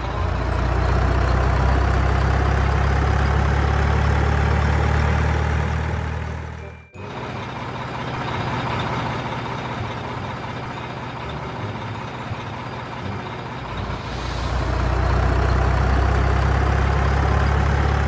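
Heavy diesel dump trucks and a wheel loader running at a sand pit, a loud low engine rumble. It cuts off suddenly about seven seconds in, comes back quieter, and grows loud again about fifteen seconds in.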